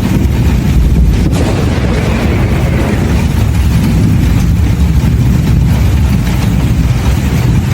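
Thunderstorm: a loud, steady low rumble of thunder and storm noise.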